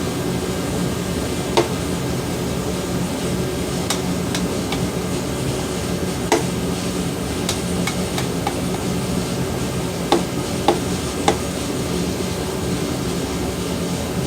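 Scattered sharp taps, about seven at irregular intervals, from tapping a piston down through a strap-type ring compressor into a cylinder bore of a Jeep 4.0 engine block. A steady fan hum runs underneath.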